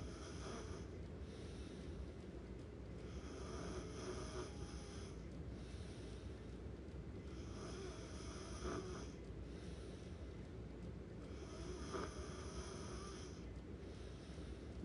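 Snoring in slow, even breaths, one snore about every four seconds.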